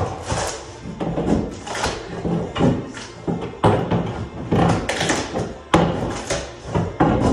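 Old lauan plywood underlayment with linoleum attached being pried and split up off the subfloor with a long-handled floor scraper: a run of sharp cracks and knocks, one to two a second, with the scrape of the blade between them.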